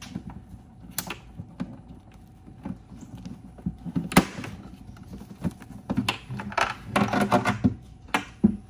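A plastic retention clip being worked loose and pushed out through a hole in a 2021 Ford Bronco's hollow steel tailgate: irregular plastic clicks and knocks against the metal. The clicks turn into a quicker, louder run of rattling about six seconds in.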